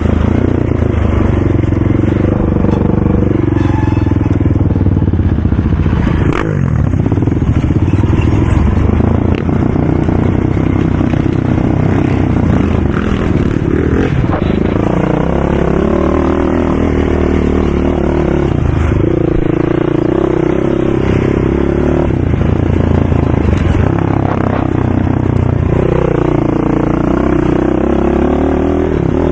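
ATV engines running hard, their pitch rising and falling again and again as the throttle is opened and closed.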